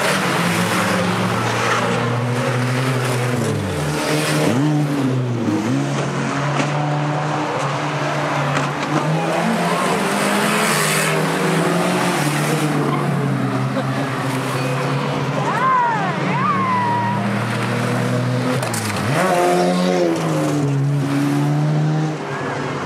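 Several banger racing cars' engines running hard together, revs rising and falling as they lap the oval, with a couple of brief high squeals about two-thirds of the way through.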